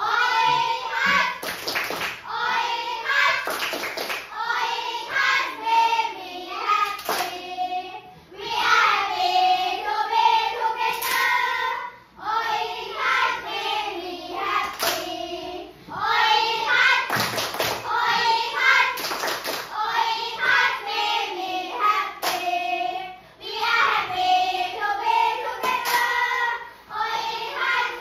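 A class of young children singing an action song together in phrases, with short breaks between lines and handclaps now and then.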